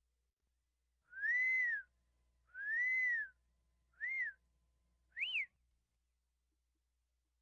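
R2-D2 droid sound effect: four electronic whistles, each rising and then falling in pitch. The first two are long, the last two short, and the last one climbs highest.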